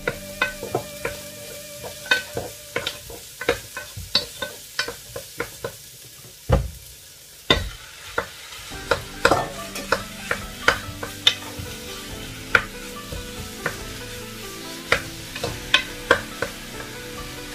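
Cubed beef searing in a hot pot with sautéed onion and garlic: a steady frying sizzle under repeated sharp clacks of a wooden spoon and steel bowl against the pot as the meat is scraped in and stirred. Two heavier thumps come about halfway through.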